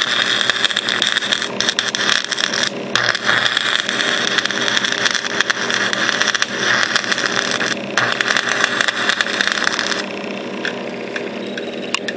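Stick welding arc crackling and sizzling as a crack in a riding mower's steel axle is welded, over a steady hum. The arc breaks off briefly twice and stops about ten seconds in, leaving the hum.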